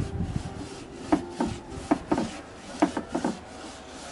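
Hand scraping and rubbing strokes on a weathered wooden shutter, short and irregular, starting about a second in. The wood is so sun-damaged that chunks come away.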